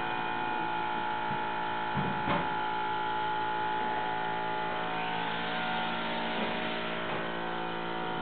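A steady buzzing hum made of many held tones, with two light knocks about two seconds in as the flat-screen TV is pushed back on its wall mount.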